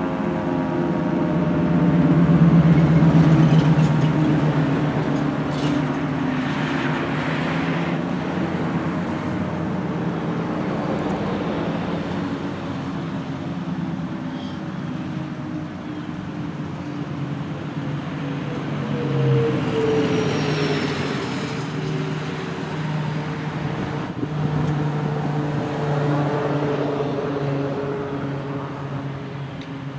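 Federal Signal 2T22B two-tone warning siren winding down after its test: a low, droning chord that slowly falls in pitch. It swells briefly twice, near the start and again about two-thirds of the way through.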